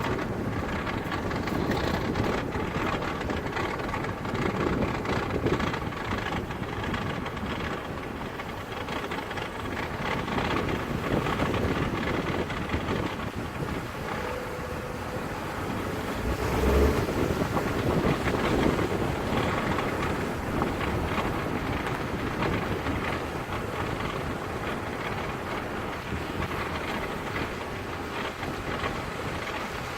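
Ford Focus Mk3 on the move: steady road noise, with irregular short knocks from the front end that are the fault being shown.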